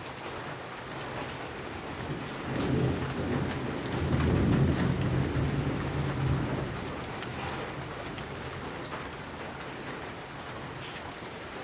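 Steady rain falling, with single drops ticking. A low rumble of thunder builds about two seconds in, is loudest around four to five seconds, and fades away a couple of seconds later.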